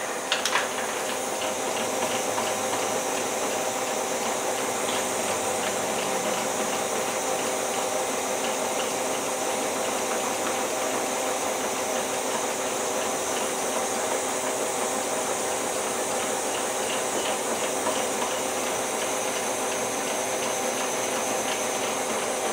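Glassworking lathe running steadily at sealing speed, with a constant hum, under the steady hiss of gas torch flames heating a glass tube's stem up to sealing temperature. One small click about half a second in.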